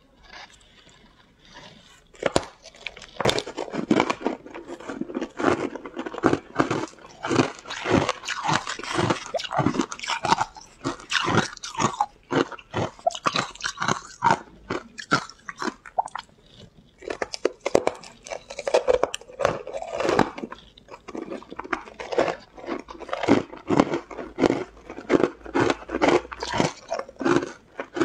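Frozen ice being bitten and chewed: a dense, irregular run of hard crunches and cracks that starts about two seconds in.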